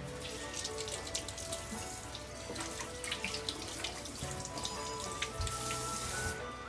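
Kitchen tap running into a stainless steel sink, with water splashing and small knocks of things being handled under the stream. The flow is heavier for about a second near the end.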